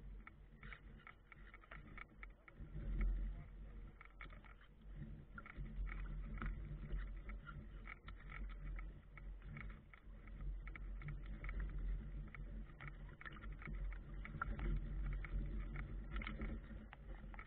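Wind rumbling on the microphone of a camera riding aboard a small radio-controlled sailboat, swelling and easing in gusts. Many small ticks and splashes come from choppy water slapping the wooden hull as it sails.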